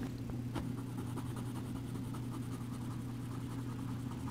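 Black coloring pencil scratching on drawing paper in quick short shading strokes, over a steady low hum.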